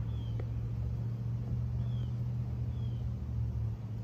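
Steady low rumble of road traffic, with a few short high falling chirps over it.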